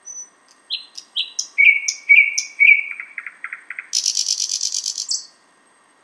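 Thrush nightingale singing one song phrase. It opens with repeated falling paired notes, then a quick run of lower clicking notes, and about four seconds in a loud high rattling trill that ends with a single note and cuts off.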